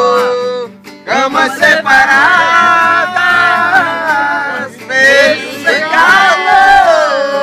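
A romantic song with a singer holding long, drawn-out notes over instrumental backing; the voice breaks off briefly about a second in, then carries on.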